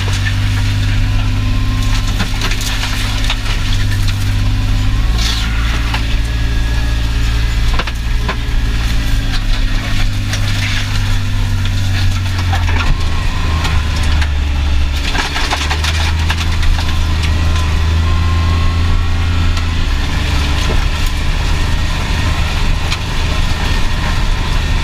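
Kawasaki Mule Pro FXR side-by-side's three-cylinder engine running steadily under way, heard from inside the cab. Its pitch steps up or down a few times as the speed changes. Short rattles and knocks come now and then.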